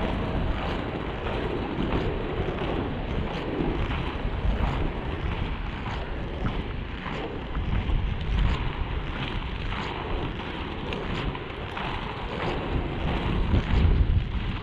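Wind noise buffeting the camera microphone over the steady rolling rumble of FR325 inline skate wheels on asphalt.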